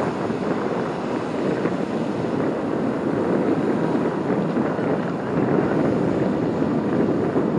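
Steady rushing noise of the car ferry Asakaze Maru running on the water, its engine and wash blended together, with wind buffeting the microphone.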